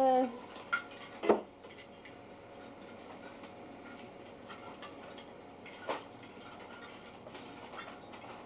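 Quiet room tone with a few small clicks and one sharper knock about a second in, like light handling of objects close by.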